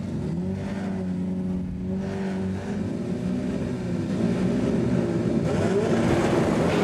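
Car engine revving and holding a steady high pitch, the pitch shifting and wavering in the second half.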